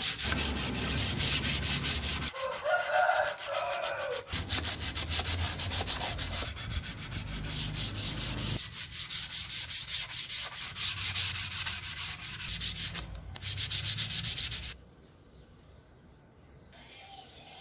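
Sanding wood: sandpaper rubbing over a board in quick, regular strokes, stopping abruptly near the end.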